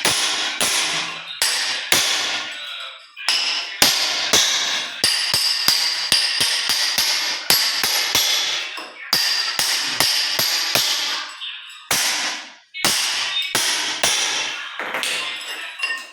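Hammer blows on a chisel, several a second and irregular, chipping at the floor around a floor drain, each strike ringing metallically.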